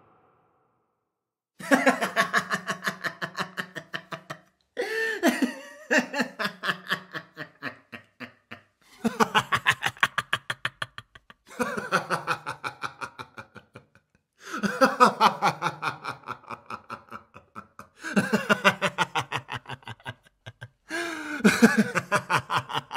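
A man laughing in about seven separate bouts of quick, pulsed laughs, each bout falling in pitch, with short silent gaps between them.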